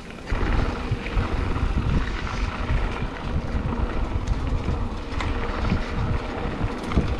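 Mountain bike rolling along a dirt singletrack: wind buffeting the action camera's microphone over a low rumble and scattered rattles from the tyres and bike on the trail, getting louder about a third of a second in.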